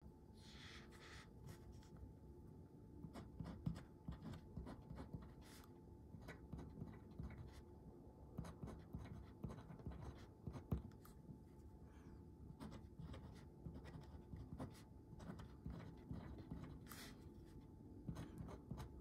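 Lamy 2000 fine-nib fountain pen writing on dot-grid paper: faint, irregular scratches and small taps of the nib as each letter is formed.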